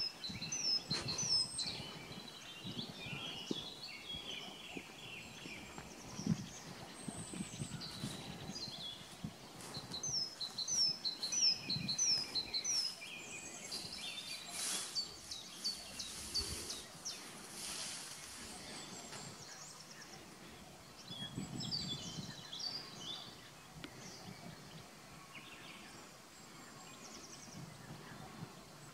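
Small songbirds singing and calling: high, quick chirps and runs of short downslurred notes, about two a second, over a low steady background.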